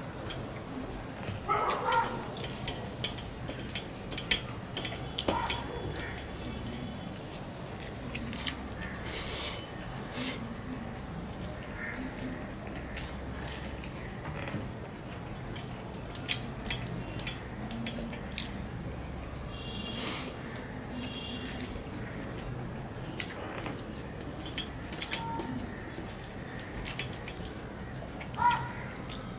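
Close-up eating sounds of a person eating rice and fish curry by hand: wet chewing and lip-smacking in short, irregular clicks, with fingers mixing rice on a steel plate.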